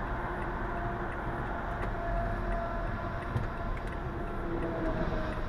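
Steady rumble of road vehicles on a highway, with a faint tone drifting slightly lower near the end.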